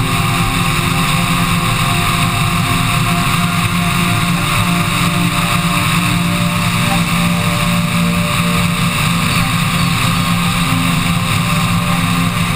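Flex-wing microlight's engine running steadily at cruise, mixed with heavy wind rush on the onboard camera microphone; the sound cuts in abruptly.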